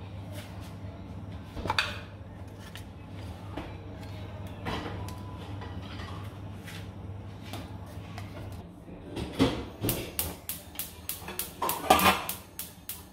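Household clatter of dishes and cupboard doors being handled, over a steady low hum. There are a few separate knocks at first, then a quick run of sharp clicks and clatters, about three a second, over the last few seconds.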